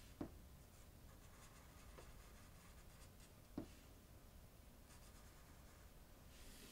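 Faint scratching of a felt-tip marker drawing strokes on paper, with two soft taps, one just after the start and one about three and a half seconds in.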